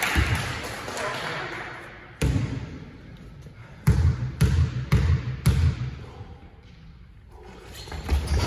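Basketball bouncing on a sports-hall floor as a player dribbles before a free throw: one bounce about two seconds in, then four bounces about half a second apart, each with a short echo in the large hall.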